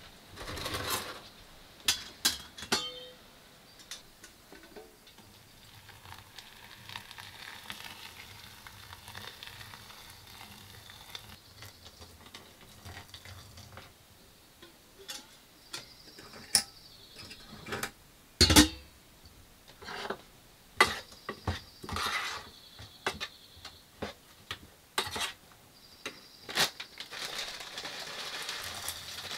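Breakfast being made in a small camper kitchen: scattered clinks and knocks of a cooking pot, lid and utensils, with rustling of a plastic bag of oats and hot water poured from a kettle into the pot. The loudest is a sharp knock just past the middle.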